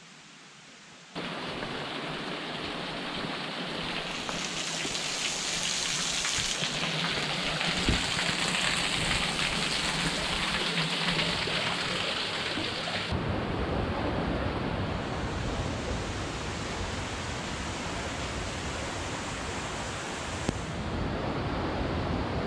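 Steady rush of water, starting suddenly about a second in and changing abruptly in loudness and tone twice later on.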